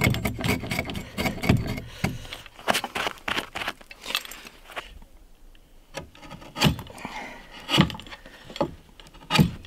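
Hand axe chopping and paring wood in the corner notch of a log: a quick run of small cuts and scrapes, then, after a short pause, three heavier blows.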